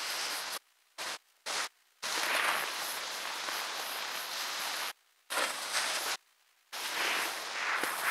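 Steady hiss of snow scraping under a rider descending a slope, mixed with wind on the microphone. The sound cuts out abruptly to silence five times, briefly each time.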